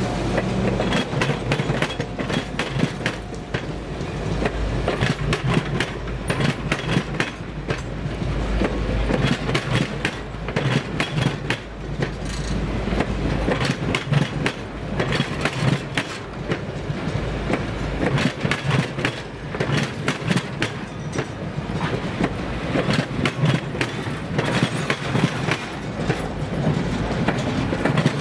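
Heavyweight passenger coaches rolling past, their steel wheels clicking irregularly over rail joints over a steady rumble. The deepest part of the rumble falls away about two-thirds of the way through.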